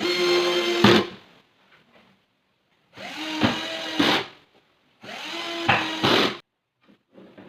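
A small power tool's motor run in three short bursts of about a second each. Each burst starts with a quick spin-up, holds a steady hum and ends with a sharp knock.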